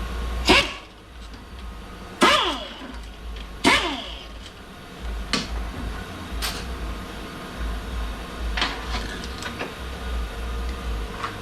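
Metal clanks and knocks from hand tools and parts during the disassembly of a Ford AOD automatic transmission. There are three loud, sharp clanks in the first four seconds, the second and third ringing briefly, then lighter clicks and taps over a low steady hum.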